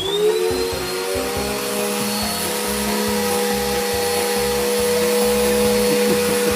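An electric motor appliance switches on, whining up to speed in the first moment, then runs steadily with a rushing-air hiss. A low, evenly repeating beat runs underneath.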